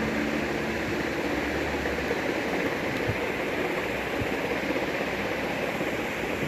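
Steady rushing background noise, with two faint brief knocks about three and four seconds in as mango pieces are spooned into a glass blender jar.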